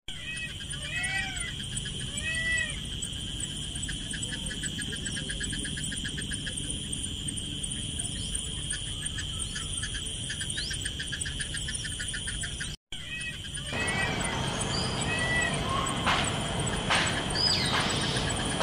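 Indian peafowl calling, several short rising-and-falling cries at the start and again later, over a steady insect drone and a fast pulsing chirp. The sound cuts out briefly about two-thirds through, and a few short knocks and a quick bird chirp come near the end.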